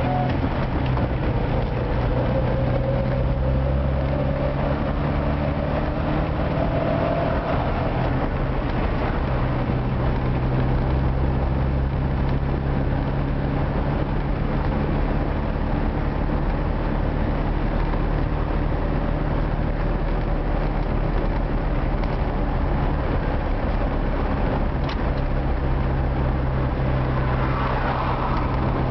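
Old Moskvich car driving at speed, engine and road noise heard from inside the cabin as a steady low drone. For the first several seconds a whine rises slowly in pitch, then fades.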